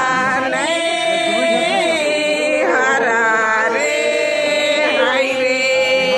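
Several voices singing together in a chant-like song with long held notes: a lota pani welcome song (swagat geet) sung at a Kurukh wedding.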